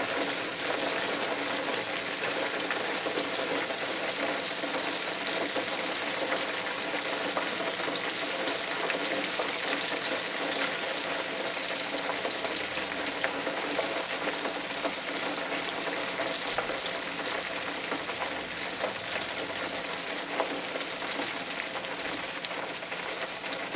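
Hot oil in an electric turkey fryer sizzling steadily, with scattered faint crackles, as the fried turkey drains above it in the raised basket.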